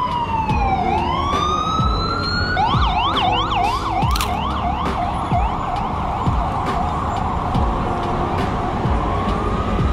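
Electronic emergency-vehicle siren on a city street. It wails down and back up, switches to a quick yelp about two and a half seconds in, then to a faster warble, and begins to wail up again near the end, over traffic noise.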